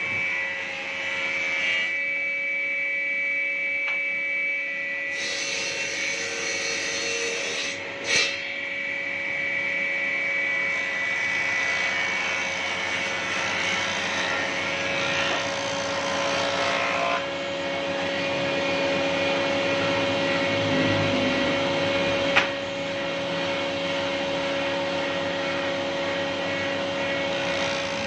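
Combination woodworking machine's jointer running with a steady whine while a long wooden plank is fed over its cutterhead, the planing noise swelling in stretches as the knives shave the board. Two sharp knocks stand out, about eight and twenty-two seconds in.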